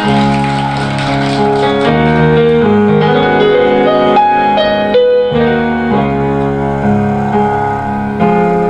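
Piano music: held chords and notes changing every second or so.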